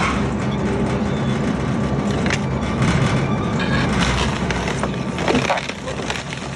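Twin-shaft shredder running with a steady hum while its hooked cutter blades grind up an upholstered armchair. The chair's frame cracks and snaps a few times, about two seconds in, around four seconds and again near five and a half seconds.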